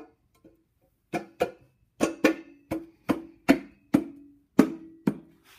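Valve cover being set onto the cylinder head and worked down over the studs: about ten sharp knocks in quick, uneven succession, each with a short low ring.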